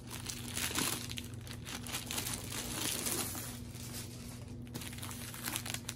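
Plastic wrapping crinkling as it is pulled off a rolled diamond-painting canvas, busiest for the first three seconds or so and then thinner.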